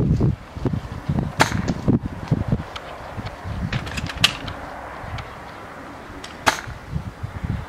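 Airsoft shots: three sharp cracks about two and a half seconds apart, with a few fainter clicks between them, over a low rumble.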